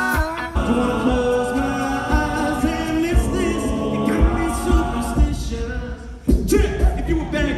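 All-male a cappella group singing in close harmony into microphones, their voices carried over stage speakers. For the first half-second the tail of a rock band with guitars is heard before it.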